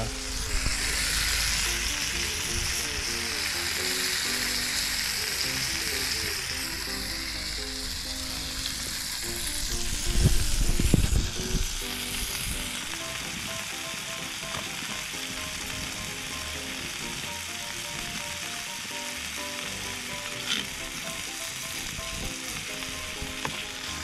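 Slabs of beef searing in a frying pan over a charcoal fire: a steady sizzle, strongest in the first half and settling lower after about twelve seconds. A brief low rumble about ten seconds in.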